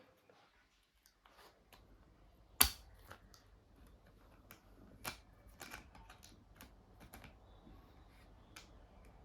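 Scattered small clicks and taps from working on a laptop, with one sharp click about two and a half seconds in.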